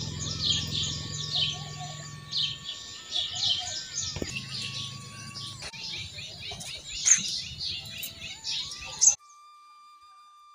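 Many birds chirping in quick, repeated short calls over a faint steady outdoor hum. About nine seconds in, the birdsong cuts off suddenly and only faint, held, flute-like tones of background music remain.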